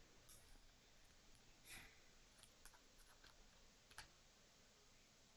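Near silence with a few faint clicks and soft rustles of tarot cards being handled, the sharpest click about four seconds in.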